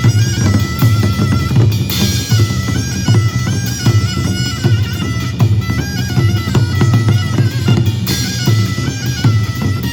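Korean traditional military band music: a shrill, stepping shawm melody over steady drum beats, with a loud crash about two seconds in and again about eight seconds in.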